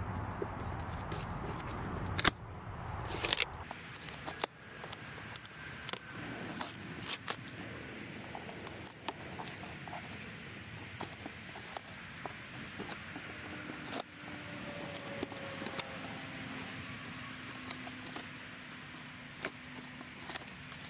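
Cardboard box being handled and opened: scattered knocks and clicks with scraping and crackling, and a short tearing or scraping sound about three seconds in.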